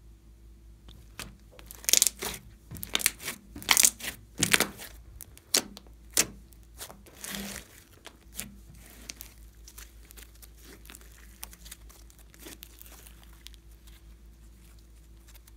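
Fluffy slime being stretched and squeezed by hand, giving a quick run of sharp pops and crackles, densest in the first half, then only a few faint pops.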